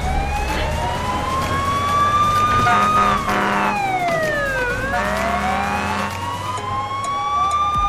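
Fire engine siren wailing in slow sweeps: rising for about three seconds, falling quickly, then rising again. A low engine rumble runs underneath.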